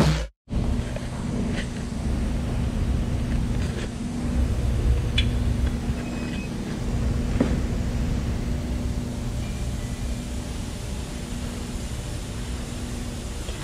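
Steady hum and rumble of commercial laundry machinery, with a low constant tone and a few faint clicks.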